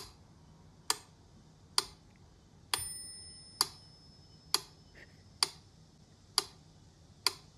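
Steady clock-like ticking, one sharp tick just under a second apart. About three seconds in, one tick comes with a bright bell-like ding that rings on for several seconds.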